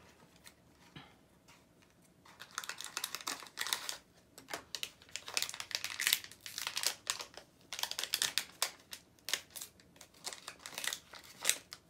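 Hands opening a small cardboard pin blind box and handling the packaging inside: a run of quick crinkles, clicks and rustles starting about two seconds in.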